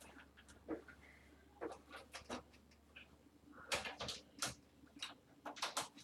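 Hands working computer parts and an L-shaped hard-drive cable connector, making irregular light plastic clicks and taps, thickest about four seconds in and again near the end, as the connector is being fitted to the drive.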